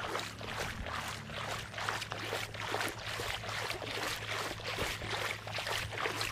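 Shallow seawater splashing and sloshing in a quick, even rhythm, about three strokes a second, as someone wades through it, over a steady low hum.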